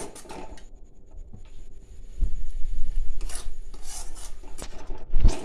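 Metal spatula scraping and stirring thick onion paste against the inside of a metal kadai, a rasping scrape. A low rumble from handling sets in about two seconds in, and there is a loud low thump near the end.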